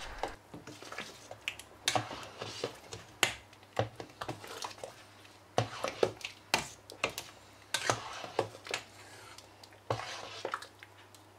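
A spoon stirring thick ajvar (pepper and aubergine sauce) in a large stainless steel pot, knocking and scraping against the pot irregularly, one or two knocks a second. A faint steady low hum sits underneath.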